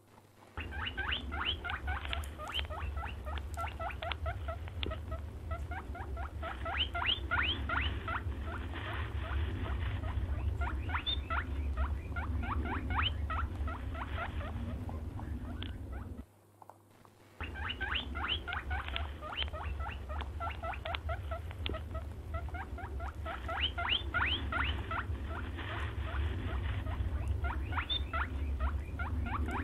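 Brown hare squeaking: quick runs of short, high, downward squeaks, several a second, over a steady low hum. The sound cuts out for about a second halfway through, then starts again.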